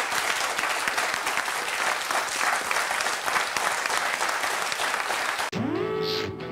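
Studio audience applauding steadily. About five and a half seconds in, the applause gives way abruptly to the start of theme music with electric guitar chords sliding up in pitch.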